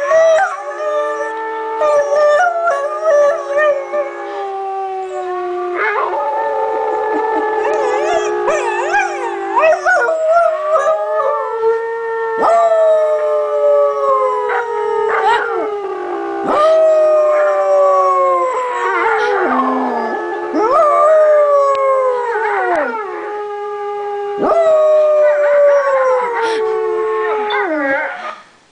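A beagle howling: a run of long, drawn-out howls, each a few seconds long and sliding down in pitch at its end, with short breaks between them.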